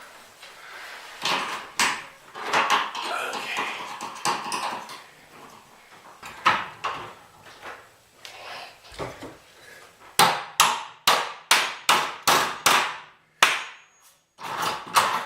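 Hammer tapping the stops into the ends of a trolley rail, with scattered knocks and handling noise at first, then a quick run of about eight sharp strikes near the end.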